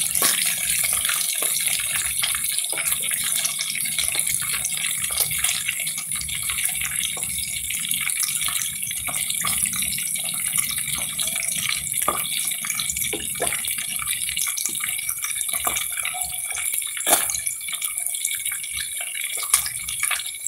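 Hot oil sizzling steadily around pieces of bluefish shallow-frying in a pot, with many small crackling pops and a couple of louder pops near the end. The fish is already cooked through and is being left longer to crisp the skin.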